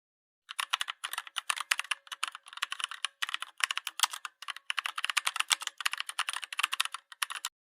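Rapid, irregular clicking with a few short pauses, like fast typing on a keyboard. It starts about half a second in and stops near the end.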